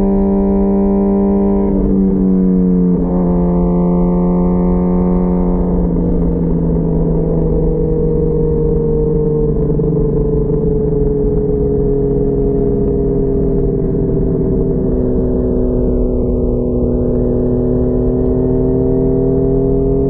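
2004 Kawasaki ZX-10R's inline-four engine running through a full Sato titanium exhaust at steady road speed. The note breaks briefly and settles slightly lower about two seconds in, then slowly falls as the throttle eases off, lifting a little near the end.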